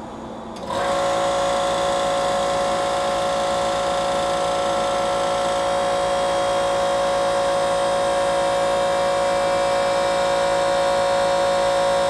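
A motor starts abruptly under a second in and runs at one constant speed, with a steady whine of several fixed tones.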